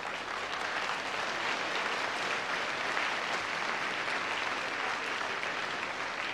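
Theatre audience applauding, a dense, steady clapping that holds at the same level throughout.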